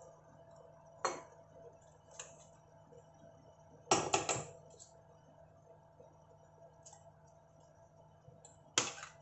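Spoon and wire whisk clinking against a stainless steel mixing bowl while flour is mixed, with a handful of separate sharp metal clinks. The loudest is a quick cluster about four seconds in, and another comes near the end.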